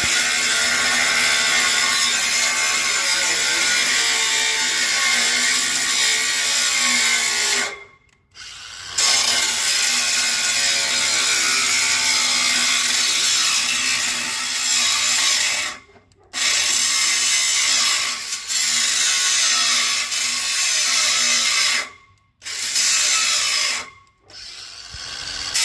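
Power saw cutting scrap metal, running loud and steady. It stops abruptly and starts again about four times.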